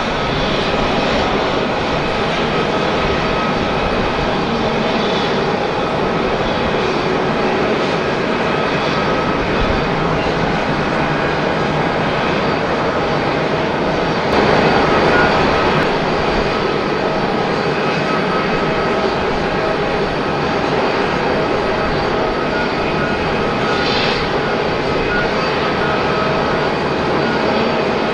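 Boeing 767-300's twin turbofan engines running at low taxi thrust: a steady whine of several held tones over a broad rush, swelling slightly about halfway through.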